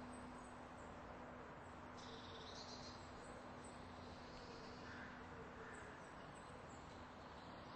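Near silence: faint background with a steady low hum and a few faint high chirps.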